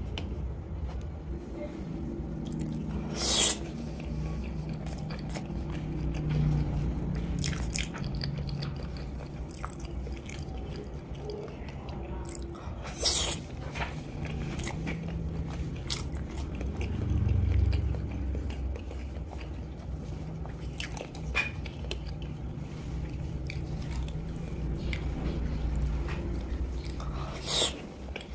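Close-miked chewing of hard-boiled chicken eggs, with a few sharp mouth clicks several seconds apart.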